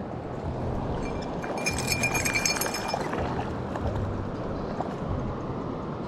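Steady rush of flowing river water close to the microphone. From about one to three seconds in, a brief high, rapidly pulsing tone sounds over it.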